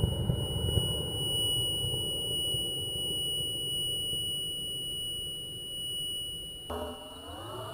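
Low rumble of a high-power rocket motor fading as the rocket climbs away from the pad, heard through a pad-mounted camera along with the camera's steady high-pitched electronic whine.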